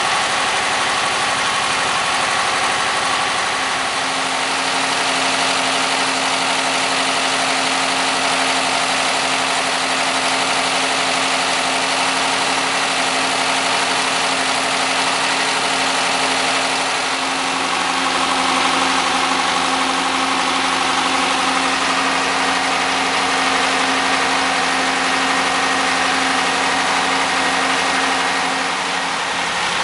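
MeMZ-969B air-cooled V4 engine running steadily during its run-in after a major overhaul, through a temporary standard muffler. Its speed shifts slightly about four seconds in and again around seventeen seconds.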